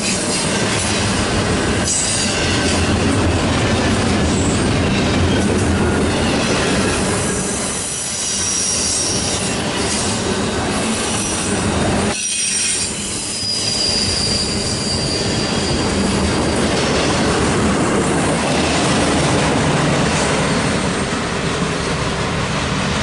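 Double-stack intermodal well cars rolling past at close range: steady wheel-on-rail rumble and clacking over rail joints, with a thin high squeal from the wheels now and then.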